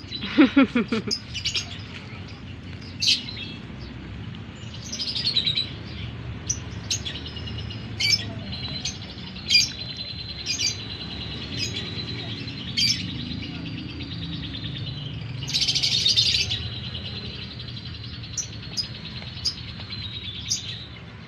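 Lovebird chirping: short sharp chirps about once a second, a long thin twittering chatter through the middle, and a louder burst of chatter about three quarters of the way through, the bird practising its calls.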